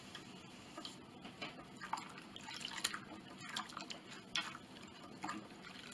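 Faint wet sounds of a damp cloth rubbed along a wooden strip, then dipped and squeezed in a bowl of warm soapy water, with small splashes and drips. This is the hand-washing of old grime off a piece of antique piano wood.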